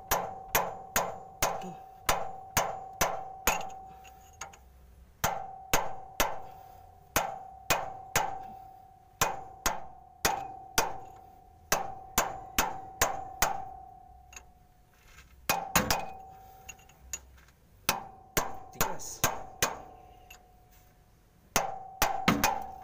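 A hammer striking a steel chisel set against a Hino gearbox's leaking oil seal, tapping it round to work it out of its bore. The strikes are sharp and metallic, each ringing with a clear tone that dies away, in runs of about two to three a second with brief pauses between runs.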